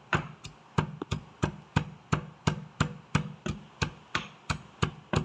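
Shallots being crushed by pounding: a steady run of short, dull strokes, about three a second.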